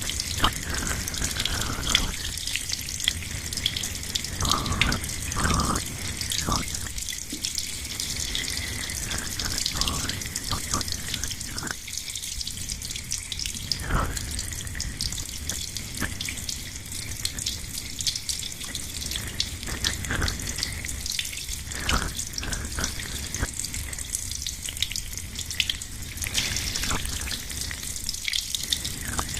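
Wet hair being washed with shampoo, recorded binaurally. It makes a continuous fine wet crackle, broken every second or two by deeper rubbing strokes.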